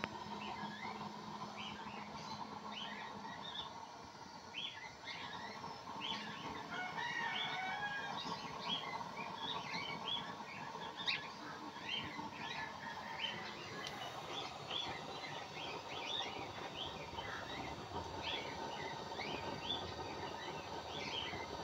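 Many small birds chirping in quick, short calls over a steady background hum.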